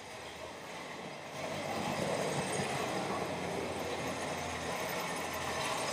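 Street traffic: a motor vehicle's engine and tyres running past on the road, growing louder about a second and a half in and staying steady.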